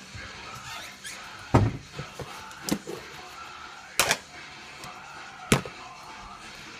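Four sharp knocks and clacks of hard plastic, a second or so apart, from handling a plastic coffee canister and a drip coffee maker on a countertop.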